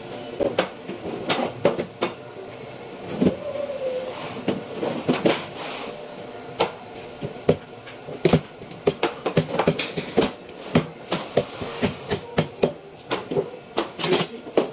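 A large knife chopping and slicing through red grouper steaks on a plastic cutting board. The blade knocks against the board sharply and irregularly, and the knocks come faster and closer together in the second half.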